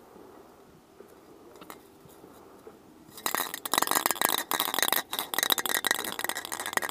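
Tremclad aerosol spray paint can being shaken, its mixing ball rattling and clinking rapidly inside with a metallic ring. The rattling starts about three seconds in, after a quiet stretch.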